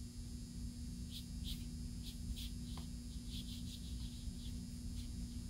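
About a dozen faint, short scratches of a watercolor paintbrush touching the paper, bunched in the middle, over a steady low hum.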